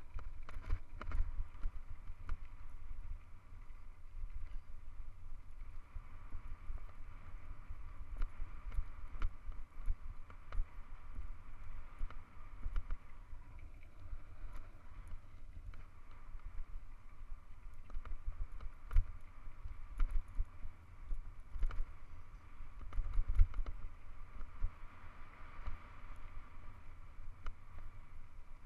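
Hardtail mountain bike descending a rough gravel road, its tyres crunching and the frame rattling with frequent sharp knocks over loose rocks. Wind buffets the microphone with a constant low rumble.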